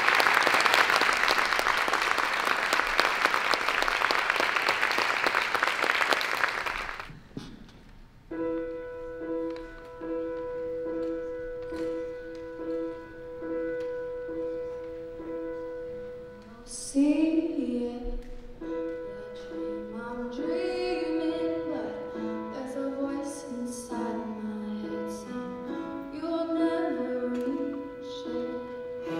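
Audience applauding, fading out about seven seconds in. Then a grand piano starts an introduction of repeated notes, and about halfway through a soprano begins singing over the piano accompaniment.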